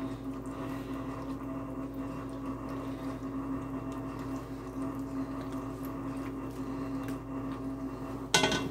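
Silicone spatula pressing and smoothing cooked macaroni in a ceramic baking dish, soft scraping over a steady low hum, with a short clatter near the end.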